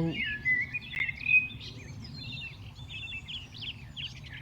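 Several songbirds chirping and calling together in a quick, overlapping series of short notes and pitch glides, over a steady low hum of background noise.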